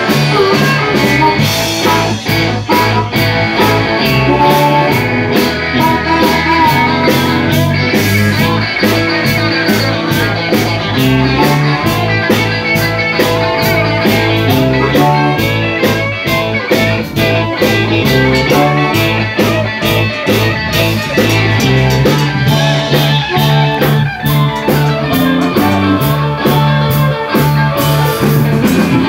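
Live blues-rock band playing: electric guitars over a stepping bass line and drums, with a steady beat.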